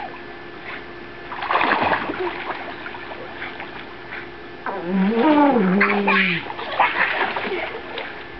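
Pool water splashing and lapping as a dog paddles through it, with a louder splash about one and a half seconds in. About halfway through a brief wavering voice rises and falls in pitch.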